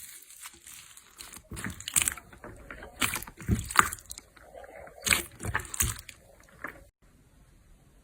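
Slime being squished and worked by hand: irregular wet squelching and crackling in several bursts, going quieter after a sudden break near the end.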